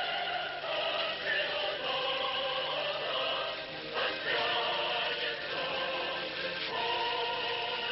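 Background choral music: a choir singing long held notes, with a short break about four seconds in.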